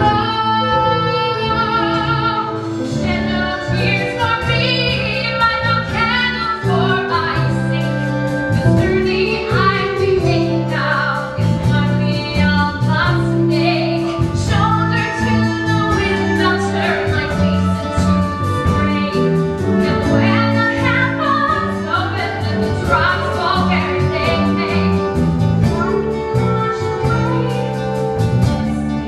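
A woman singing a musical-theatre ballad with vibrato on held notes, accompanied by a live band.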